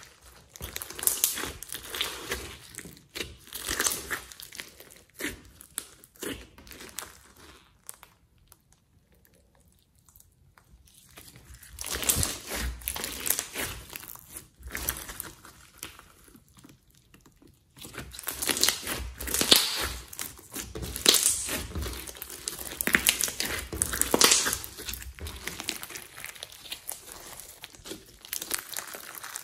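Thick brown slime packed with foam beads being squeezed, pressed and stretched by hand, giving sticky squelches and crackling pops in irregular bursts. It goes quiet for a few seconds about a third of the way in, then the crackling is densest in the second half.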